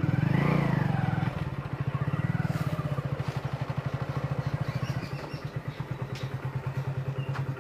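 Motorcycle engine revving briefly at first, then running at a steady, evenly pulsing idle.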